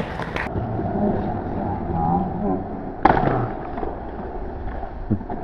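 Inline skates slam onto a ledge about three seconds in, landing a grind, in one sharp, loud hit that rings on briefly. A few lighter clacks come in the first half-second, and people talk in the background.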